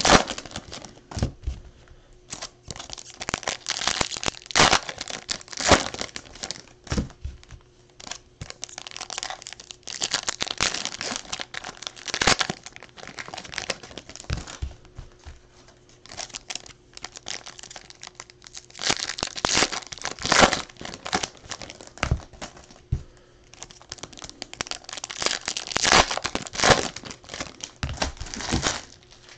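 Plastic and foil baseball card pack wrappers crinkling and tearing as packs are ripped open by hand, in irregular bursts with short pauses between packs.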